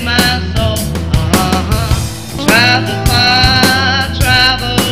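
A song: a sung vocal line over a backing band, with a steady drum beat and bass.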